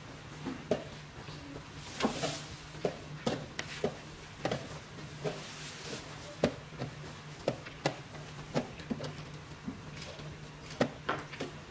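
Chess pieces knocked down onto a wooden board and chess clock buttons slapped in a fast blitz game: sharp, irregular clicks and knocks, at times several a second, over a low steady hum.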